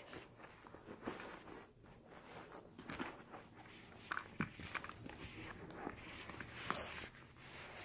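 Faint fabric rustling and soft scattered knocks and clicks of hands handling a baby doll while pulling clothes onto it.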